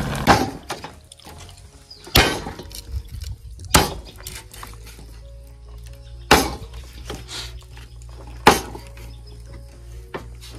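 Large chopping knife striking raw pork on a wooden log block: several sharp chops a couple of seconds apart, with faint background music underneath.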